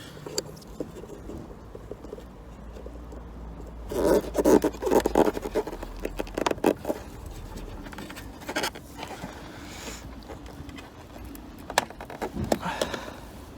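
Scraping and clicking of hands and tools working a front parking sensor loose from its housing in the bumper, with a dense run of scrapes and knocks about four seconds in and a few sharp clicks near the end.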